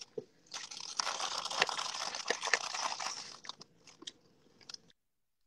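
Crunching, chewing noise close to the microphone as Swedish Fish gummy candy is eaten, lasting about three seconds with a few scattered clicks after. The audio then drops out entirely near the end.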